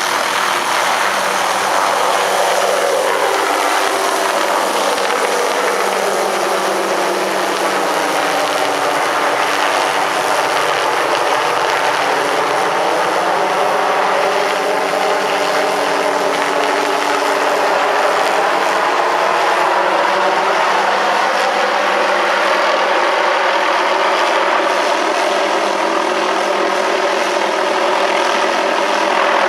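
MD 500E turbine helicopter running, its engine and rotor giving a steady loud noise. The pitch sags over the first several seconds and climbs back over the next ten.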